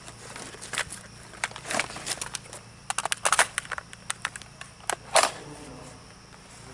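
Irregular sharp clicks and crunches, with a quick cluster about three seconds in and a louder one about five seconds in, over a steady high insect drone.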